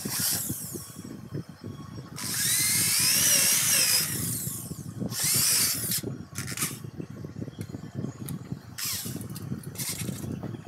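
Homemade grinding machine running with a low steady hum, with several bursts of high-pitched grinding on it; the longest, nearly two seconds, starts about two seconds in.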